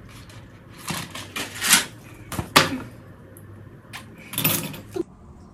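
A gold chain choker being handled and taken off its paper card packaging: several short rustles of the card and light metallic clinks of the chain, with one sharp click a little before the last rustle.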